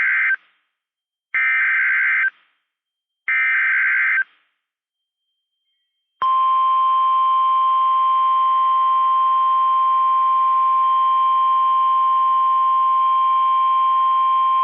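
Emergency Alert System SAME header on NOAA Weather Radio: the end of one buzzy digital data burst and then two more, each about a second long, followed after a short gap by the steady 1050 Hz Warning Alarm Tone held for about nine seconds. This signals a warning activation, here for a tornado warning.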